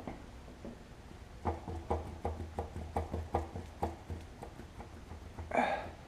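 A run of light knocks, about three a second, from hand work on a small-block Chevy engine during teardown, then a single louder, longer sound near the end.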